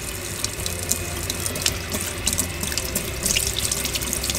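Kitchen tap running into a sink, the stream splashing over a duck breast and a knife held under it, with small scattered clicks.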